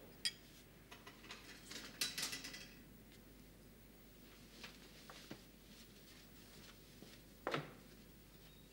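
Faint breakfast-table sounds: a metal spoon clinks against a china cereal bowl, then a short clatter of crockery and chair as she gets up from the table about two seconds in, with a few light ticks. Near the end there is one sharp knock.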